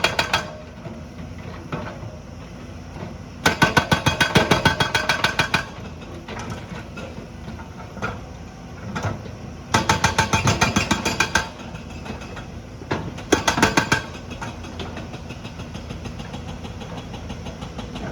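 Hydraulic rock breaker on a JCB pounding in short bursts of rapid blows, about nine a second. A burst is just ending at the start, then three more follow, each lasting one to two seconds. Between bursts the machine's diesel engine runs steadily.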